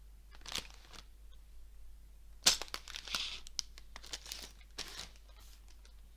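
Lego set packaging being handled and torn open: crinkling and tearing crackles, a short one about half a second in, then a cluster from about two and a half seconds, starting with the loudest crack.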